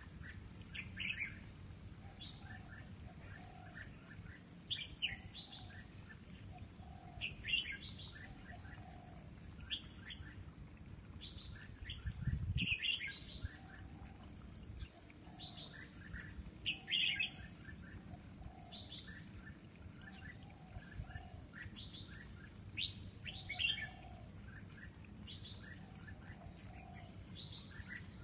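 Red-whiskered bulbuls (jambul) singing short, chirpy phrases every one to three seconds. A brief low rumble comes about twelve seconds in.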